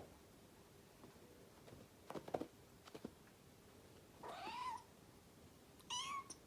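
Kitten meowing twice: a meow that rises and falls in pitch about two-thirds of the way in, and a shorter one near the end, after a few light clicks and taps.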